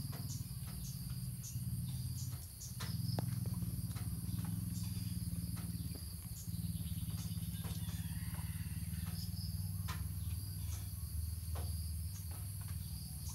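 Insects trilling steadily in the background, high-pitched and unbroken, over a low steady hum, with scattered small clicks and rustles close by.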